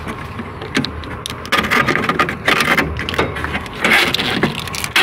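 Scratching, rustling and clicking of a car's wiring harness being handled and pushed through a gap in the front body panel, the noise coming in irregular bursts.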